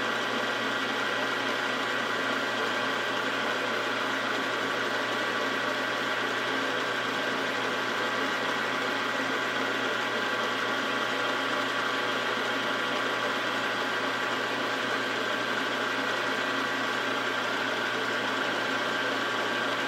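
Milling machine running steadily with a boring head turning in the bed bar hole of a tool-and-cutter-grinder base casting, boring it out. A constant machine hum with several steady whining tones that does not change.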